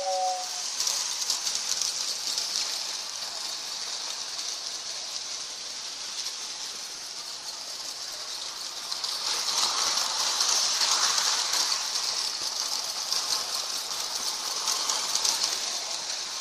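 Lionel toy steam locomotive running on its track: a steady hiss with a light rattle, louder for a stretch from about nine seconds in. A two-tone train whistle sound cuts off just as it begins.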